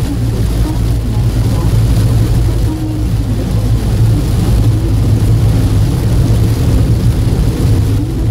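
Inside a car driving on a wet expressway in heavy rain: a steady low rumble of engine and tyres on the wet road, with the hiss of rain and spray.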